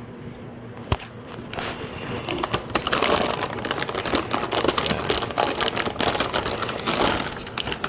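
Graphics card box and its packaging being handled and opened: crinkly rustling with many small clicks and taps, after a single sharp click about a second in.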